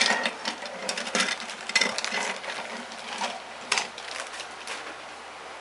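Clear plastic bag crinkling as plastic model-kit sprues are pulled out of it, with irregular light clicks and clatters of the plastic parts knocking together and onto a wooden table. It settles down near the end.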